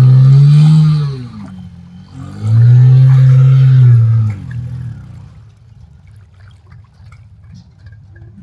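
Bajaj CT110X's 110cc air-cooled single-cylinder engine revving hard under load as the rear wheel churns through wet mud. There are two loud bursts, each rising then falling in pitch: one cuts off about a second in, and the other runs from about two seconds in to about four. After that only faint noise remains.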